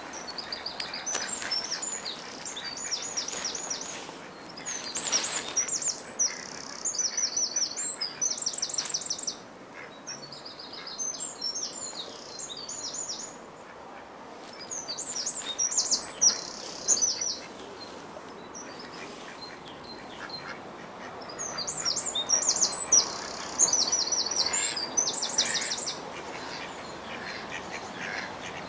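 A small songbird singing repeated phrases of high, quick chirps and rapid trills. Each phrase lasts a few seconds, with pauses of a second or more between them.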